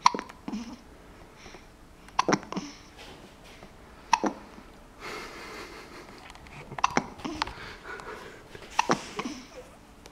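Hiccups: five short, sharp ones, about two seconds apart.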